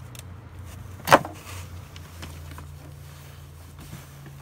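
A single sharp snap about a second in as a tool pries at the plastic electrical connector on a 2006 Hummer H3's coolant temperature sensor, over a steady low hum.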